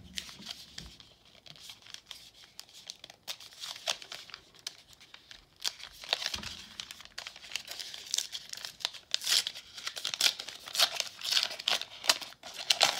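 Foil wrapper of a 1991 Upper Deck baseball card pack being crinkled and torn open by hand. Light, scattered crackling at first, then louder, denser crinkling and tearing from about halfway through.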